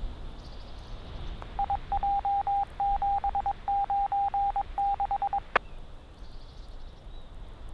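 A single-pitched beep keyed in long and short pieces like Morse code over the police radio channel for about four seconds, then one sharp click, over low radio hiss.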